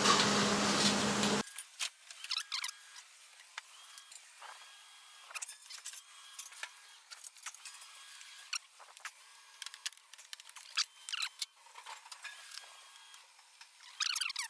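A loud rushing noise cuts off abruptly about a second and a half in. Scattered light clicks and taps follow, like small tools or parts being handled.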